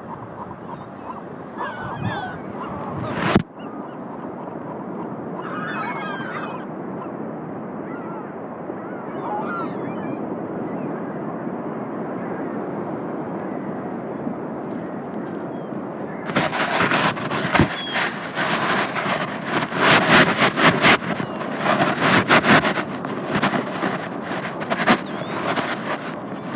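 Seagulls calling several times with short, wavering cries over a steady background rush, with one sharp knock about three seconds in. From about two-thirds of the way through, louder, rough, uneven gusts of noise take over.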